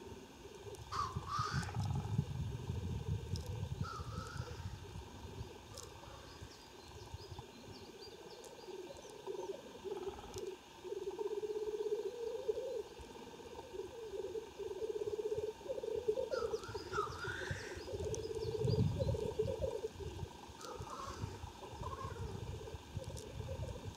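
Male black grouse lekking: a continuous bubbling, cooing rookoo song, with several short rising hissing sneezes. Bursts of low rumbling noise come near the start and again about three-quarters of the way through.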